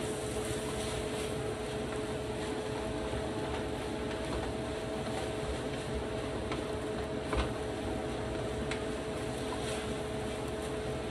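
Kitchen range-hood extractor fan running steadily with a constant hum, and a few light knocks of a wooden spatula against a skillet as food is stirred.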